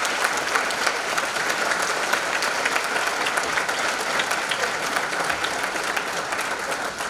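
A large audience applauding, many hands clapping together steadily, easing off slightly near the end.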